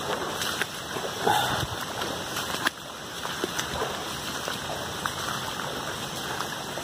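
Heavy tropical-storm rain falling steadily on woods and a flooded path, with splashing steps through shallow floodwater and a louder splash about a second in.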